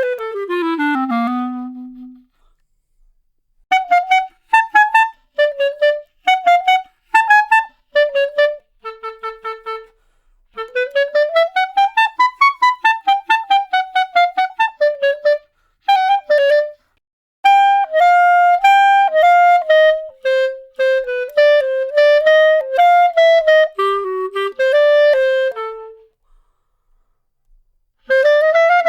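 Solo clarinet playing a series of short phrases with pauses between them. It starts with a fast run falling to a low held note, then short detached notes and a quick scale that rises and falls. A smoother melody follows, and a new phrase begins near the end.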